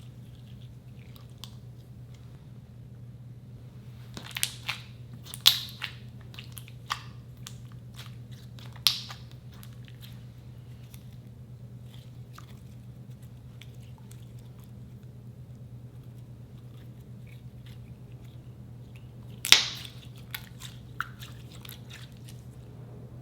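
Slime being squeezed and worked by hand, giving scattered sharp clicks and pops over a steady low hum. There is a cluster of pops between about four and nine seconds in, and the loudest single pop comes about twenty seconds in.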